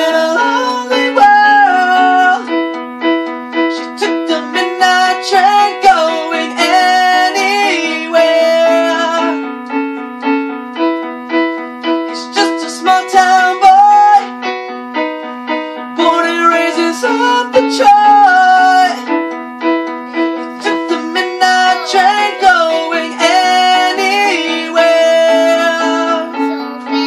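A song played on an electronic keyboard: a melody over a steady, repeating low accompaniment.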